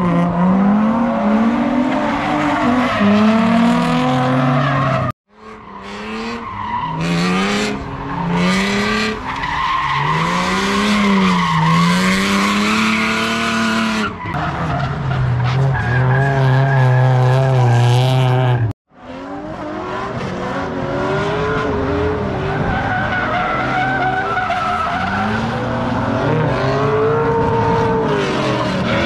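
Drift cars at speed: engines revving up and down again and again with tires squealing and skidding. Engine pitch holds steady for a few seconds past the middle, and the sound cuts off abruptly twice, at about five seconds in and again near nineteen seconds, where one clip gives way to the next.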